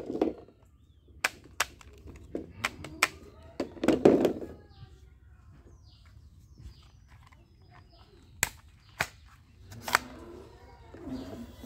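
Plastic toy guns being handled and set down on a table: a series of sharp plastic clicks, with a couple of duller knocks as they are put down and picked up.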